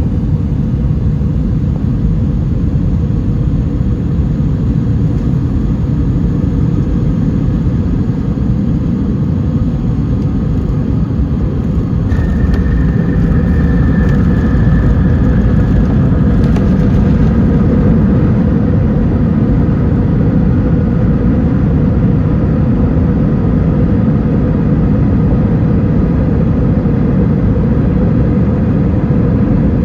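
Cabin noise of an Airbus A320-212 during landing: a loud, steady rumble that grows louder about twelve seconds in, with a faint whine that falls slightly in pitch over the next few seconds.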